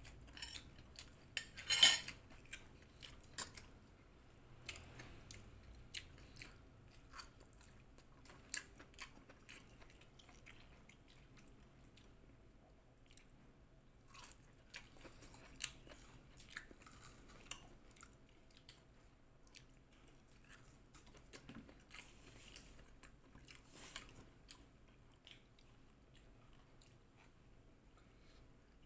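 Close-up eating sounds: chewing and crunching of fried fish and rice, with a metal fork and spoon clinking and scraping on a plate, loudest about two seconds in.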